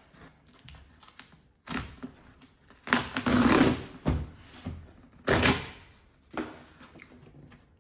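Packaging being pulled and torn open by hand: several bursts of rustling and tearing, the longest and loudest about three seconds in.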